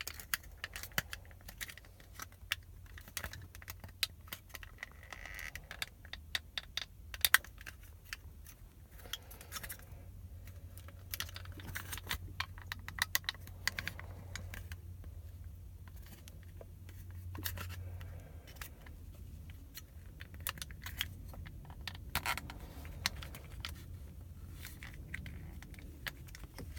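Irregular plastic clicks, taps and scrapes of the snap-in retaining tabs and trim of a car's door window-switch housing being worked and pried at to free the switch, over a low steady hum.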